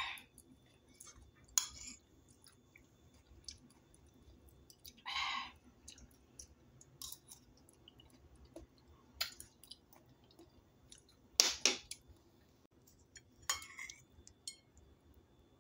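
A metal spoon clinking now and then against a ceramic plate as it scoops soft tofu in sauce, with quiet chewing between; the loudest clinks come about three-quarters of the way through.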